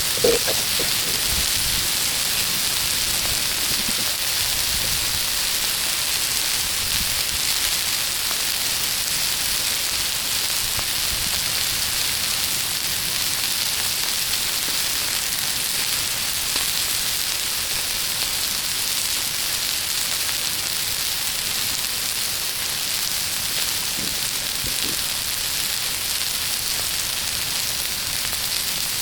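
Chicken tenders sizzling steadily in oil on a Blackstone flat-top griddle, an even high frying hiss, with a brief knock just after the start.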